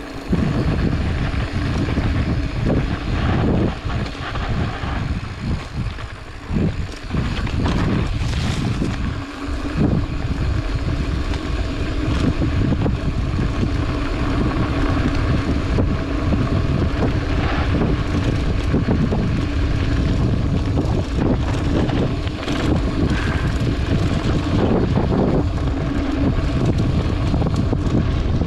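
Wind buffeting the microphone as a mountain bike rolls over a dirt trail, the tyres crunching on the dirt, with scattered knocks and rattles from bumps in the track.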